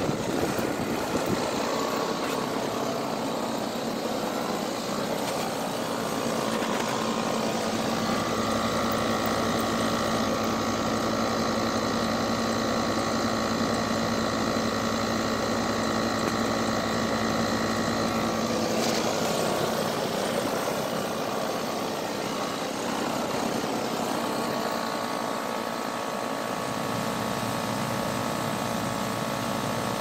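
Carrier outdoor air-conditioning condensing unit running steadily, its fan turning behind the top grille with a constant mechanical hum. A set of steady higher tones stands out more strongly for about ten seconds in the middle.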